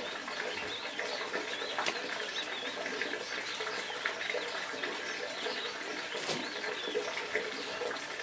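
Birds chirping in the background, with a dove cooing low, over faint rustling and a couple of small clicks as coconut fibre is pulled from the ficus roots.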